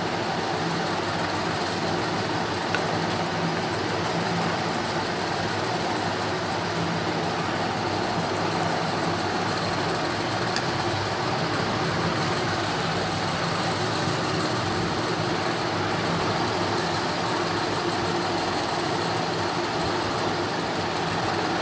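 Steady rushing background noise with a faint low hum, even in level with no distinct events.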